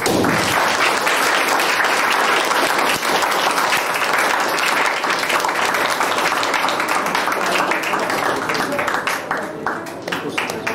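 Audience applauding, starting all at once and thinning to scattered separate claps near the end.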